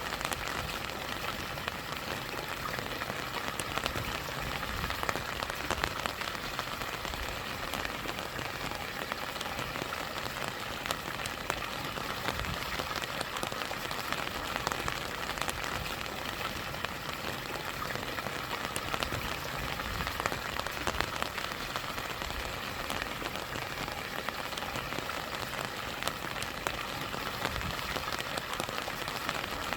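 Steady rain falling, many individual drops ticking sharply over a constant rush of stream water.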